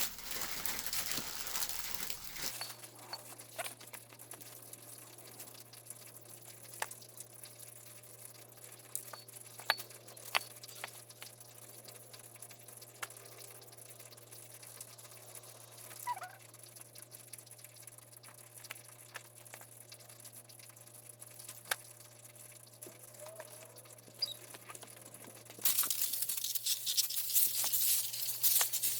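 Water from a garden hose spraying and splashing onto a brake rotor for a couple of seconds, then a quieter stretch of scattered drips and light clicks over a low steady hum, and the spraying starts again near the end.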